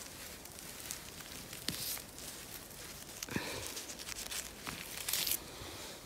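A gloved hand rustles through moss, grass and pine needles and pulls up a cluster of small wild mushrooms. Scattered crackles, with a brief tearing, hissing sound about five seconds in.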